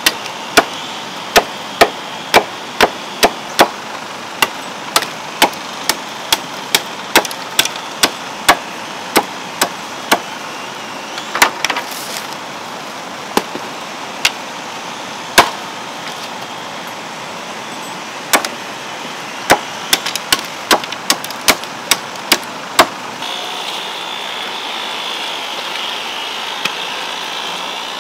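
Machete chopping bamboo: a run of sharp knocks, one or two a second, with pauses between runs. Near the end the knocks stop and only a steady background hiss remains.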